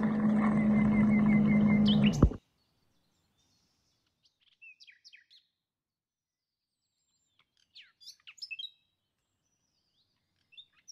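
Electric hot-water dispenser pumping hot water into a glass: a steady motor hum with water pouring, cutting off with a click about two seconds in. Afterwards faint bird chirps, twice.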